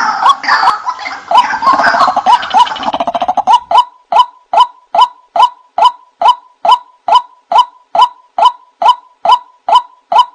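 White-breasted waterhen (wak-wak) calls from a bird-lure recording: a harsh chorus of overlapping calls, then, from about four seconds in, a steady run of single 'wak' notes about three a second.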